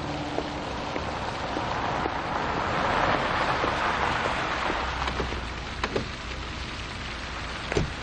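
A car's tyres rolling over cobblestones, a hiss that swells to a peak about three seconds in and then eases as the car slows, with a low rumble from about five seconds in and a few sharp clicks later.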